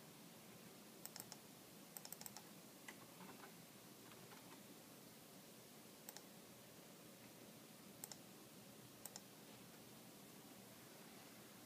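Faint clicks of a computer mouse and keyboard in near silence: a few short clusters in the first seconds, then paired double-clicks spread out.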